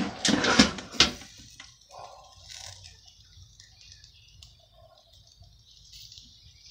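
Metal clatter of a barbecue grill's lid being lifted open, with sharp clanks at the start and about a second in. Then faint sizzling and light ticking of chicken and pork chops cooking on the grate.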